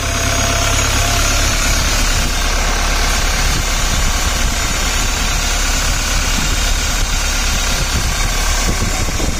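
Toyota Hiace engine idling steadily, with a steady hiss over it, running with its turbo kit newly replaced.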